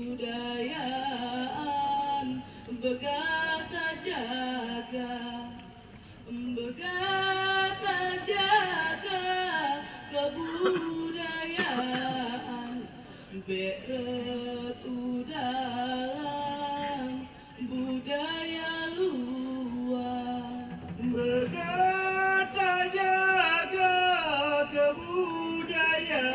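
Women's voices singing an unaccompanied chant, the sung verse of the Acehnese Saman dance, in phrases a few seconds long with short pauses between them.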